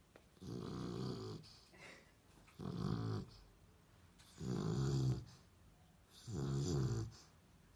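A sleeping dog snoring: four rasping snores, each about a second long, coming roughly every two seconds.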